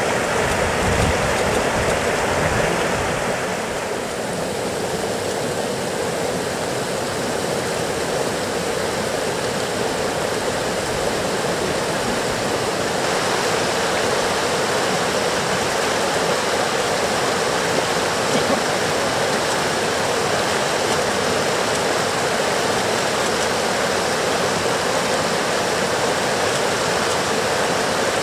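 Steady rushing of river water pouring over a small weir and its stones.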